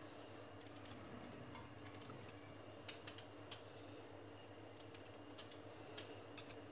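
Faint, irregular small clicks and scrapes of a knife blade peeling the skin off a raw green mango.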